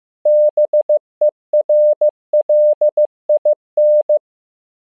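Morse code practice tone: a single steady mid-pitched beep keyed in short dits and long dahs at 15 words per minute, spelling the word BERLIN (-... . .-. .-.. .. -.).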